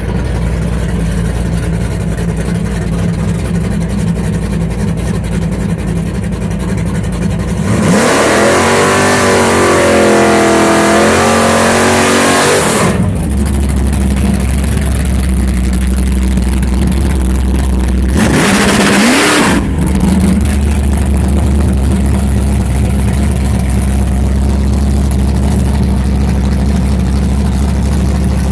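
Engine with a stubborn misfire, running at idle and revved twice: a long rev lasting about five seconds, starting about a quarter of the way in, and a short blip later on, each dropping back to idle.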